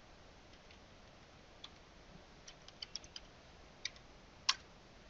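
Faint computer keyboard keystrokes: a scattered run of short clicks starting under two seconds in, the last and loudest about four and a half seconds in.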